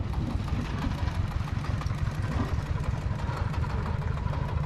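Small vehicle engine idling, a steady low rumble with a rapid even pulse.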